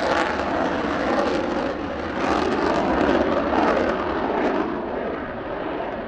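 Single General Electric F110 turbofan of a Mitsubishi F-2 fighter at full afterburner during takeoff: a steady, loud jet roar that eases off slightly near the end as the aircraft climbs away.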